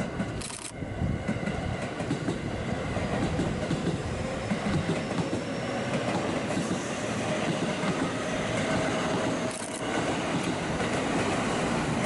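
Electric commuter train running past on the JR Kyoto Line, a steady loud rumble of wheels on rail, with a faint whine in the middle.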